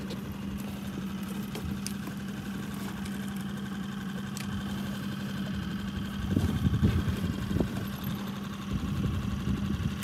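Small outboard motor running steadily at low trolling speed, a constant drone. It turns louder and rougher for a moment about six to seven seconds in.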